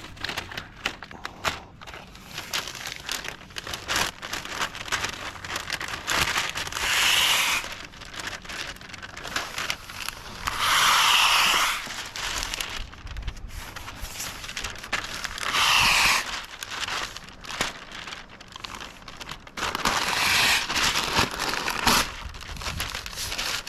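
Masking paper and tape being handled: steady crinkling and rustling, with four louder drawn-out rasps about a second long, spaced roughly four to five seconds apart.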